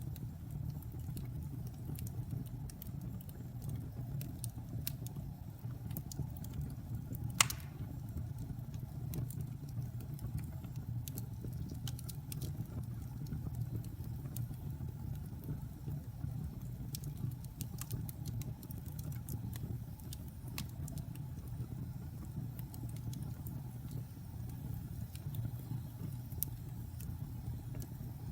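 Fire burning with a steady low rumble and scattered small crackles, and one sharp pop about seven seconds in.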